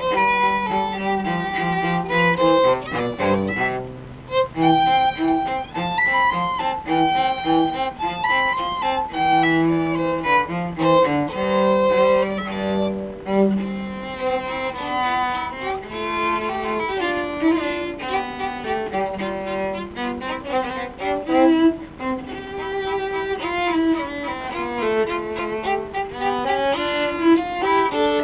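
A violin and a cello playing a classical duet together, a steady run of bowed notes with the cello's low line under the violin's melody, with a brief pause about four seconds in.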